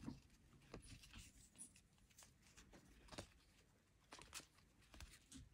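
Faint, irregular soft clicks and rustles of Topps baseball cards being slid one behind another in the hand as a pack is flipped through.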